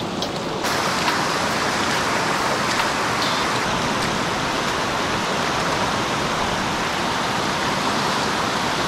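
Fast river current rushing over rocks, a steady even hiss that gets a little louder and brighter about half a second in.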